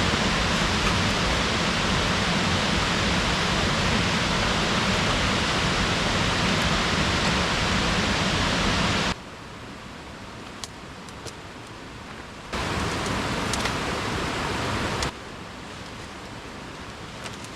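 Steady rush of falling water from a waterfall. It is loud for about nine seconds, then cuts abruptly to a much softer rush, comes back loud for a couple of seconds, and drops to the softer rush again.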